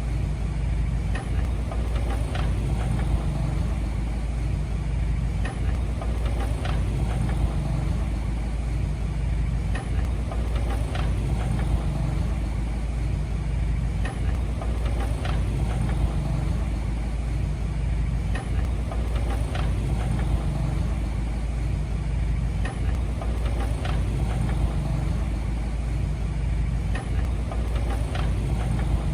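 Heavy earthmoving machine's engine running steadily, with occasional short knocks.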